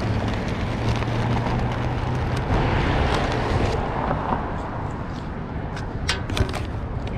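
Street traffic at an intersection: cars passing and running at the lights, with wind on the microphone. The traffic swells for a moment in the middle, and a few sharp clicks come near the end.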